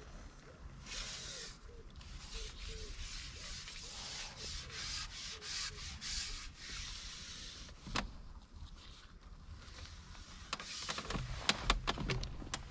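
Carbon fishing pole sliding and rubbing against hands and gear as it is pushed out over the water, a rough scraping hiss in waves. It is followed by a few sharp clicks and knocks near the end.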